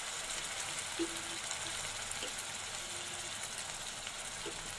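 Onion, ginger and garlic paste sizzling steadily in hot oil in a steel kadai, the raw masala being fried.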